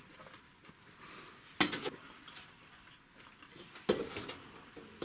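Wooden spoon knocking against a non-stick cooking pot while scooping out cooked biryani rice: two sharp knocks about two seconds apart.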